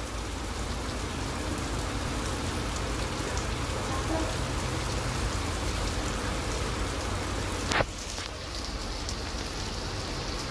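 Steady rain falling on a flat concrete rooftop, an even hiss of drops throughout. A single brief knock sounds nearly eight seconds in.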